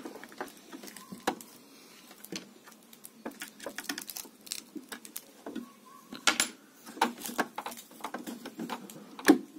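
Scattered small metallic clicks and taps of a screwdriver and an overlock presser foot being fitted to a sewing machine's presser bar, the side screw being tightened. A sharper click comes near the end.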